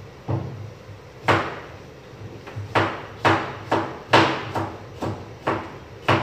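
Kitchen knife slicing a cucumber on a cutting board: a run of sharp knocks as the blade strikes the board, about ten of them at an uneven pace of roughly two a second.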